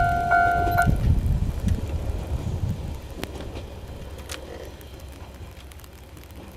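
Japanese level-crossing warning bell dinging about twice a second, stopping just under a second in, while the low rumble of the Isumi 200 diesel railcar fades steadily as it draws away.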